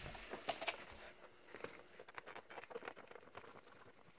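Faint, irregular small clicks and scrapes of a speedometer's mounting screws being turned out by hand, a little louder in the first second.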